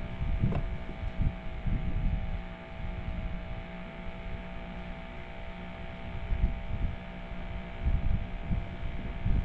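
Electric motor driving a fishing kayak, running with a steady hum of several fixed tones, over uneven low rumbling.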